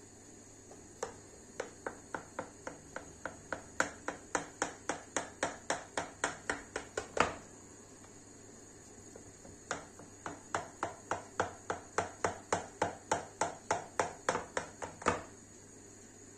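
Kitchen knife cutting a cake in a metal baking tray, the blade knocking against the tray with each quick stroke, about four clicks a second. Two runs of strokes with a pause of a couple of seconds between them.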